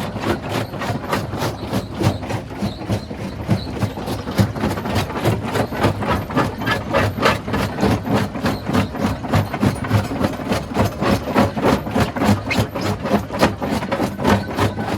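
Rock crusher machinery running under power, giving a steady, even knocking of about four beats a second over a low mechanical hum.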